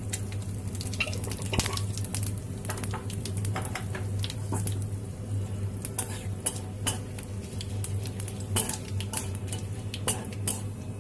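Panch phoron, bay leaves and dried red chillies sizzling in hot oil and ghee in a kadai, with a metal spatula scraping and clicking against the pan as the spices are stirred. A low steady hum runs underneath.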